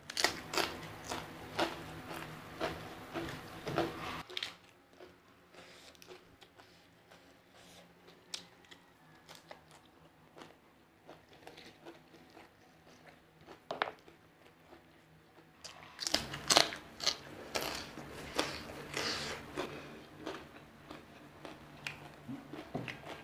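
A person biting and chewing crunchy food close to the microphone: loud crunching for the first four seconds, quieter chewing with scattered clicks, then loud crunching again from about sixteen seconds in.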